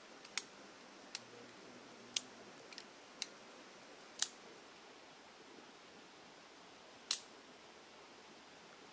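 About seven short, sharp clicks or snaps at irregular intervals, most in the first half and one more near the end, over a faint steady hiss.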